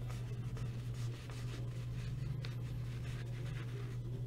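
Steady low hum of room tone, with faint rustling and a few light clicks of handling.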